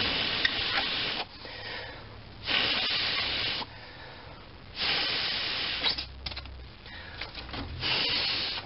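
Last water being blown out of a drained CPVC hot-water line, air and water spraying from the open pipe stub in four bursts of about a second each.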